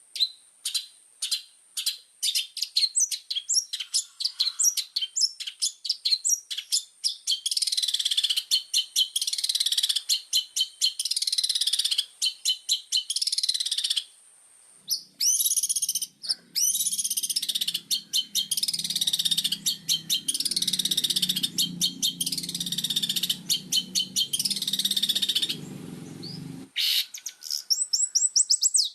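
Long-tailed shrike (cendet) singing hard, a fast chattering run of rapid, repeated high notes with brief breaks. From about halfway through, a low buzzing sound runs beneath the song and cuts off suddenly a couple of seconds before the end.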